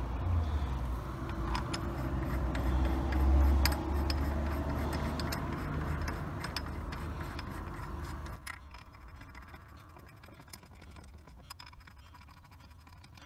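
Light metal clicks and clinks of bolts being handled as a wheel adapter is fitted to a car hub, over a low rumble that swells and then fades, dropping away about eight seconds in.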